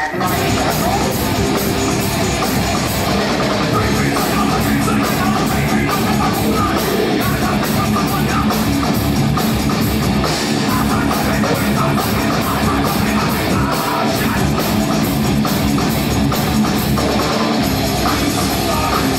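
Industrial metal band playing live at full volume: heavily distorted electric guitars, bass and drum kit pounding out a driving, steady beat.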